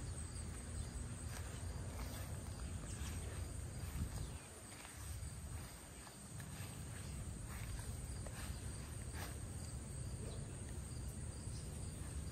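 Faint outdoor garden ambience: a steady high insect trill under a low rumble, with scattered light rustles and clicks.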